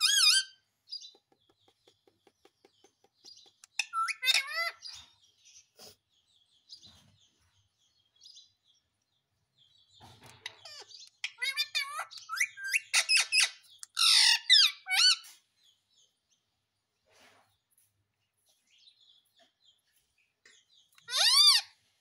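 Indian ringneck parrot giving loud, high-pitched calls that bend up and down in pitch. They come in bursts: one at the start, a few about four seconds in, a long run from about eleven to fifteen seconds, and one more near the end.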